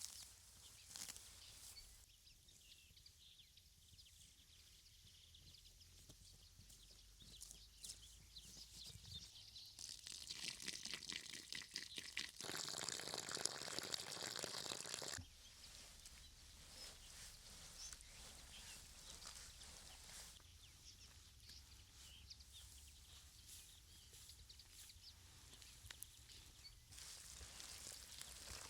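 Quiet outdoor ambience with faint scattered crackles. About ten seconds in, several seconds of louder rustling and crunching begin, then stop abruptly about five seconds later.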